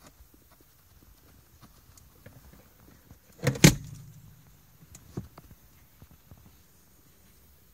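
A loud knock against the car about three and a half seconds in, then a smaller one about a second and a half later, heard from inside the cabin: a passing bison's body bumping the side of the car.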